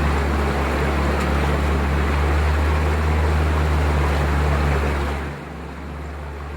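Boat motor running steadily with water rushing along the hull. About five seconds in it drops back to a lower, quieter running speed.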